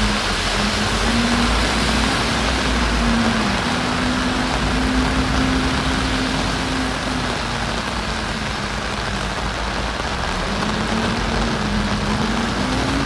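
Heavy rain pouring steadily onto pavement, a dense even hiss, with a low droning tone under it that wavers slowly in pitch and drops out briefly a couple of times.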